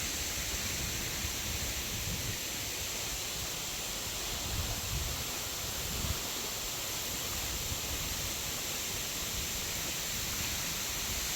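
Steady rush of flowing water, an even hiss that holds unchanged throughout.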